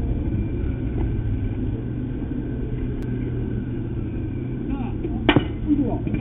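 Outdoor ballfield background of a steady low rumble with faint distant voices, broken about five seconds in by one sharp crack of a baseball impact.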